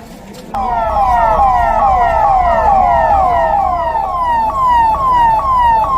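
Emergency vehicle siren, a fast falling wail that repeats about three times a second, starting about half a second in. For a few seconds two sirens sound together, out of step, over a low rumble.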